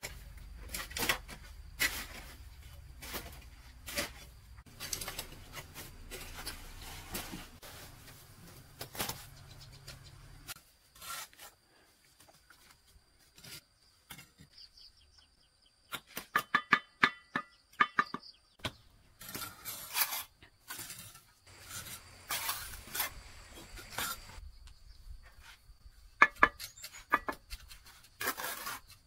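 Mason's trowel scraping mortar and clinking against bricks, in irregular strokes with a few short ringing metallic taps and a quieter stretch about a third of the way in. A low rumble runs under the first ten seconds or so.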